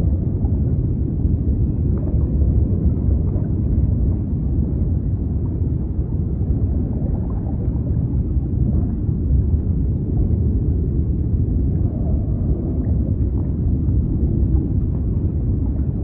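Continuous sea noise played as a sleep sound: a steady, deep, dull rush with almost no high hiss and no separate wave breaks.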